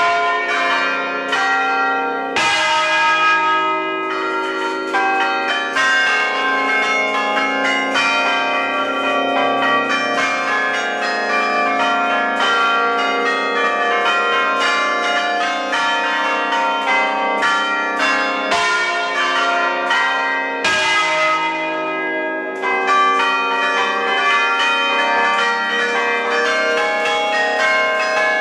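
A concert of church bells in E-flat major, eight bells plus a smaller treble bell, rung together in the Roman style (alla romana), heard close up from inside the belfry. The strokes follow in quick, overlapping succession, so the ringing tones pile up into one continuous peal, with a few heavier strokes standing out.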